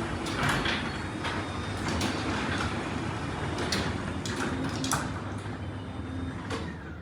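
Two garage door openers, a Chamberlain 248754 Whisper Drive Plus and a LiftMaster 8550WLB, running their doors up side by side: a steady motor and drive hum with scattered clicks and rattles from the moving doors. It dies down near the end.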